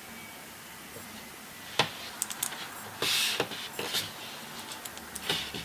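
A series of sharp clicks and light taps from small hard objects being handled, the loudest click about two seconds in, with a short scraping or rustling burst about three seconds in.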